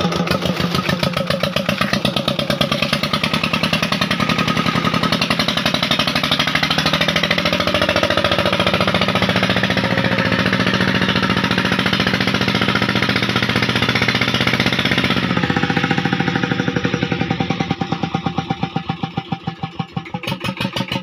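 Stationary Petter diesel engine running steadily with a fast, even chugging as it drives a tubewell pump by belt. About three-quarters of the way through the sound gets thinner and the separate firing beats stand out more.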